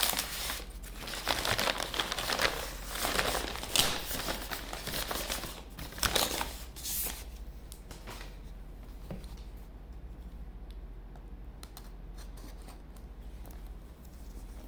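Product packaging being torn open and crinkled by hand: loud rustling and tearing for about the first half, then quieter handling with scattered small clicks.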